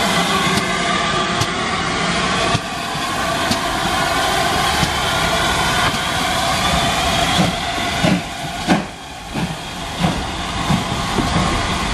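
GWR Saint class 4-6-0 steam locomotive 2999 Lady of Legend and its coaches rolling slowly past as the train comes into the station, with a steady running din. Several sharp wheel knocks over the rail joints come in the last few seconds.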